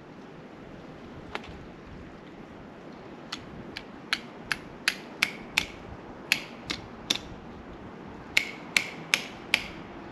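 Sap spile being tapped into a maple taphole with a hammer. The sharp knocks come in runs of about two to three a second, and the later blows ring with a short metallic note.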